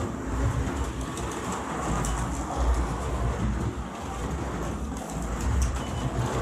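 Carrera Digital slot cars lapping a plastic track on freshly trued tires: electric motor whine over a low rumble from the cars on the track. The rumble swells and fades a few times as the cars pass.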